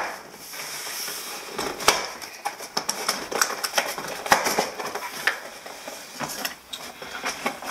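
A stapled cardboard box being pried open and its lid worked off, with cardboard scraping and rustling and many irregular clicks and knocks.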